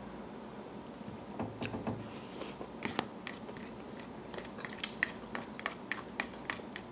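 Plastic fork clicking and scraping against a plastic food container while eating, a run of short sharp clicks that comes thickest in the second half.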